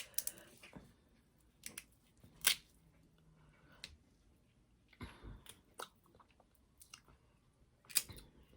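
Close-up eating sounds: chewing, with scattered sharp cracks and clicks as snow crab legs are broken open, the loudest snaps about two and a half seconds in and near the end.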